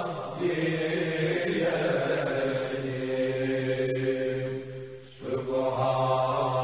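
A man's solo, unaccompanied voice chanting Islamic religious chant in long, drawn-out melodic phrases. He breaks off briefly for a breath about five seconds in, then carries on.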